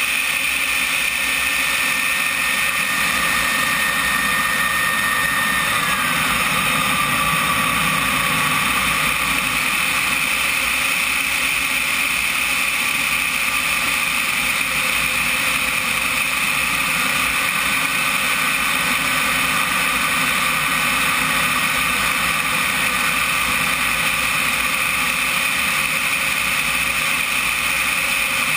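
Turbine engine of a CompARF Flash RC model jet running in flight, heard from a camera on the airframe: a steady high whine over rushing airflow noise. A faint tone in the whine falls in pitch about six seconds in.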